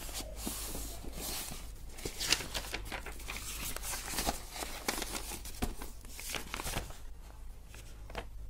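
Paper textbook pages rustling as they are leafed through and turned by hand: a string of irregular soft papery scrapes and flicks, the sharpest about two seconds in.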